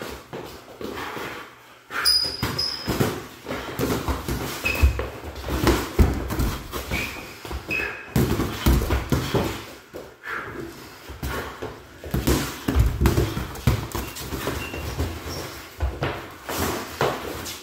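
Boxing gloves landing on gloves and bodies, with footwork thudding on a hardwood floor and brief high squeaks of sneakers on the wood, in an irregular flurry throughout.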